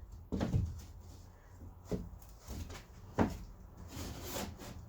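Plywood panel knocking and scraping as it is pushed and shifted into place for a test fit, with several separate wooden knocks a second or so apart.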